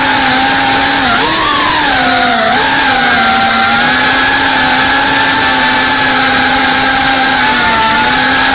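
FPV quadcopter's brushless motors and propellers whining steadily, recorded by the onboard action camera. The pitch dips and wavers briefly about one to two seconds in, then holds level.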